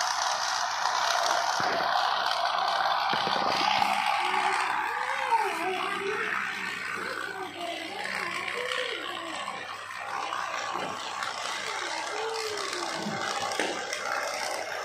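Battery-powered toy train running on plastic track, its small motor whirring and its wheels clattering, loudest in the first few seconds.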